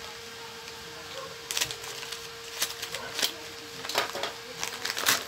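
Brown paper wrapping being slit with a knife and torn open, a series of crinkling rips starting about a second and a half in, with a faint steady hum underneath.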